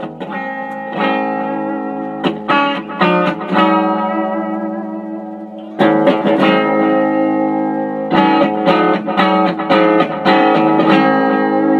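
Electric guitar with P90 pickups played through a 1970s Unicord solid-state combo amp turned wide open, the amp itself giving the distortion. Picked chords, one left ringing and fading, then louder, busier playing from about six seconds in.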